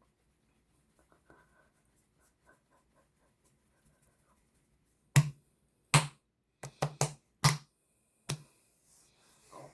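Faint scattered clicking, then a run of about seven sharp, loud clicks or smacks, irregularly spaced, starting about five seconds in.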